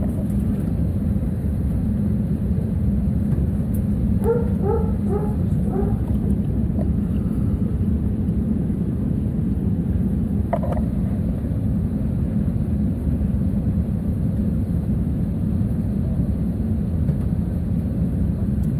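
Steady low rumble of an Airbus A321-200's engines heard inside the passenger cabin as the airliner moves slowly on the apron. About four seconds in, a dog shut in the cargo hold gives a quick run of short barks, and a single yelp follows just after ten seconds.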